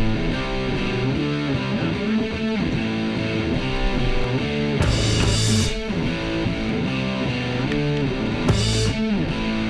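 Background music: electric guitar rock with a steady beat.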